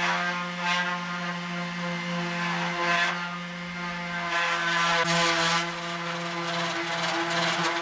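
Electric orbital sander running against the painted panels of a Land Rover seat box: a steady motor whine, with a rasping hiss that swells and fades as the pad is worked over the surface.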